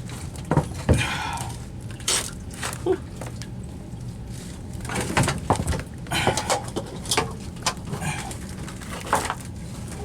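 Scattered knocks, clunks and clicks of a sewage pump and its parts being handled and set down, over a steady low hum.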